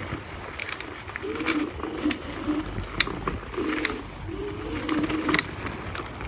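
Dualtron Ultra electric scooter riding over a rough dirt trail: the motor's whine wavers up and down in pitch with the throttle and speed, while the scooter clatters with sharp knocks and rattles over bumps.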